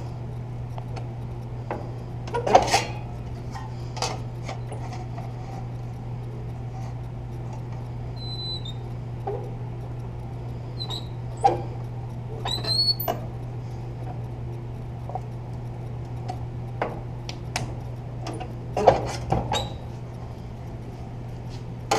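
Sheet metal being bent and adjusted by hand: scattered clanks and taps, several with a few short high metal squeaks, over a steady low hum.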